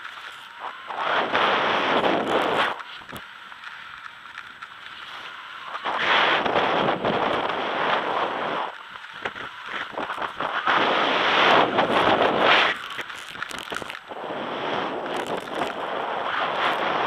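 Skis sliding and carving on packed snow, a scraping hiss that swells and fades every four to five seconds, mixed with wind on the microphone.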